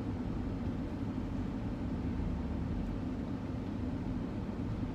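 Steady low rumble inside a car's cabin: road and engine noise of the vehicle underway, with no distinct events.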